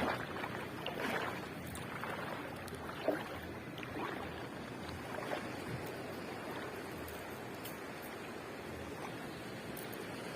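Steady wash of sea surf breaking on the shore, with a few faint clicks.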